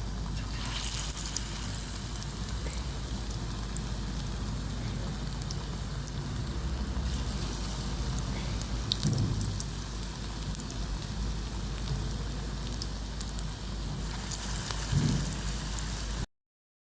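Pakoras deep-frying in hot oil: a steady sizzle with many small crackles and two soft knocks. It cuts off suddenly near the end.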